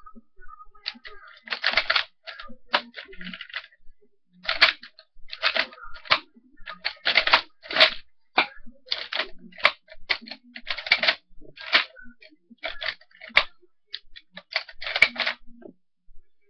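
Sharp, irregular clicks and clacks of an airsoft bolt-action rifle that takes shells, being handled and worked.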